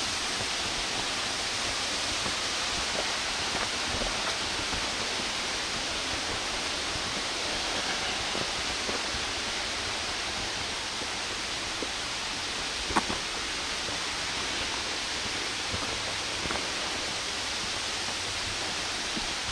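Waterfall rushing steadily, swollen with water after rain. There is one brief knock about two-thirds of the way through.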